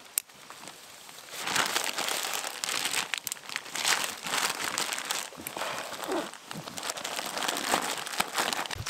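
Rustling and crackling of brush and leaves as a hiker pushes along a forest trail. It starts about a second and a half in, with many small snaps and crinkles through it.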